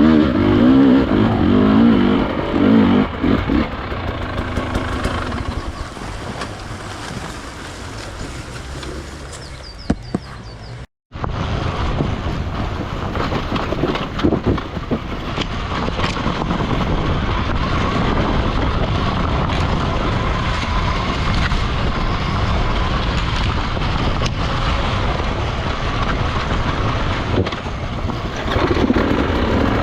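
Enduro dirt bike engine running as it is ridden off-road, louder near the start and end, with a brief dropout about eleven seconds in.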